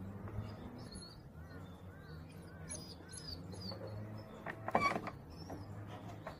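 Small birds chirping in short rising-and-falling notes over a low steady hum, with one louder, sharper sound about four and a half seconds in.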